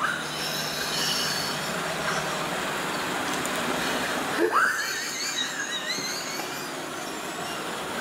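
Robot vacuum cleaner running, a steady whirring hiss with thin high-pitched whines over it. About halfway through a short squeal rises sharply in pitch, the loudest moment, followed by a wavering high whistle.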